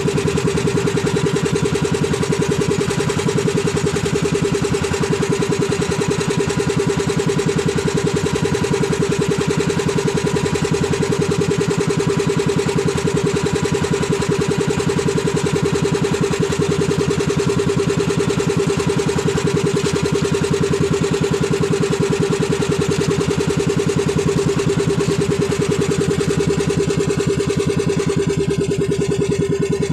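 Outrigger fishing boat's (bangka's) engine running steadily at trolling speed, with a fast, even beat.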